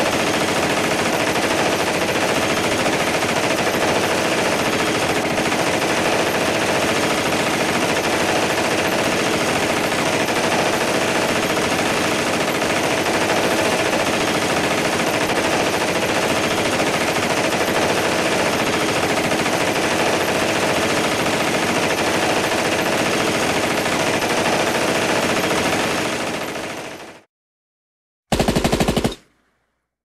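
Recorded machine-gun fire: a long, dense stretch of continuous firing at a steady level that tails off and stops about 27 seconds in, then after a short pause a single brief burst lasting under a second.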